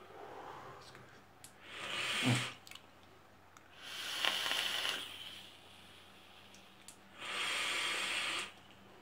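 Vapers drawing on box-mod vapes and blowing out clouds of vapour: three long, breathy hisses, about two seconds in, around four and a half seconds, and near the end, with faint clicks between them.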